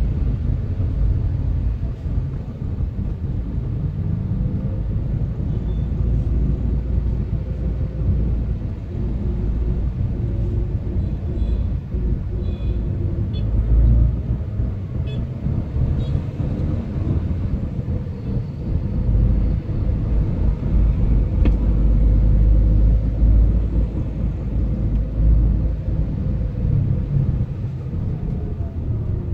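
Low rumble of a car's engine and tyres heard from inside the cabin while it creeps along in dense city traffic, with the hum of surrounding motorcycle and car engines.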